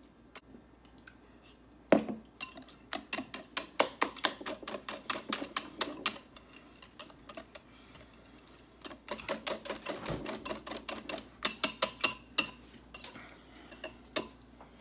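Wire whisk beating a thick mayonnaise-based sauce in a glass bowl, its wires clicking rapidly against the glass at about five a second. Two runs of whisking with a lull between, then a few last taps.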